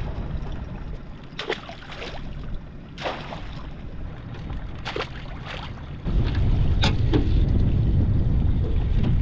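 Several sharp knocks and clatters of a crab pot being handled in an aluminium tinny. About six seconds in, a loud low rumble of wind buffeting the microphone sets in suddenly.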